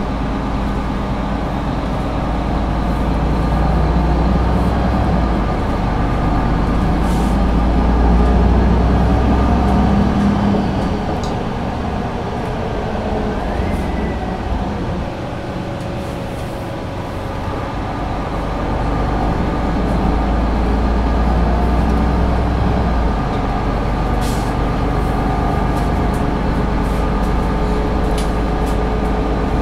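Solaris Urbino III 12 city bus under way, heard from inside: the engine and Voith automatic gearbox run with a deep steady rumble and some gliding drivetrain tones. It grows louder, eases off around the middle and builds again, with a few short clicks and rattles from the body.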